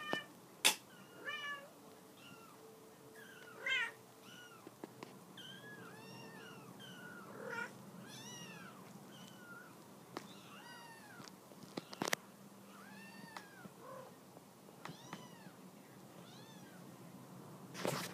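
Young kittens mewing: a long run of short, high-pitched mews, each rising and falling, about one a second. A few sharp knocks stand out over them, the loudest about half a second in, around the middle, and at the very end.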